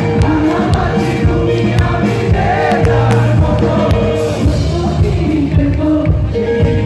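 A live band playing amplified through a PA: a woman sings a melody over electric guitar, keyboard and a drum kit keeping a steady beat.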